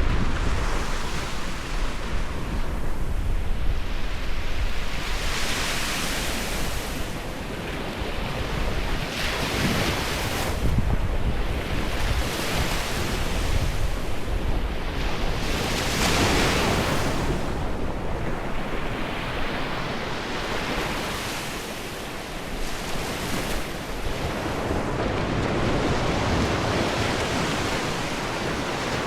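Ocean surf: waves breaking and washing ashore, the rush of water swelling and easing every few seconds, with wind rumbling on the microphone.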